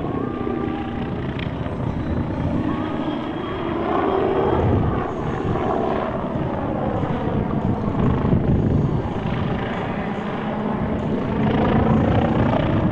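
Aircraft flying low past an air show crowd, its engine noise loud and continuous, with the pitch bending as it passes.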